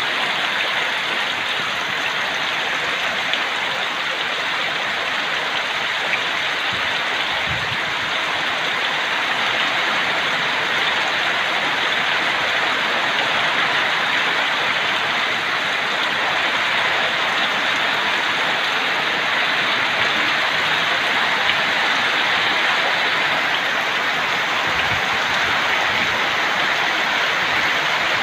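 Heavy rain falling steadily, a dense, even hiss with no let-up.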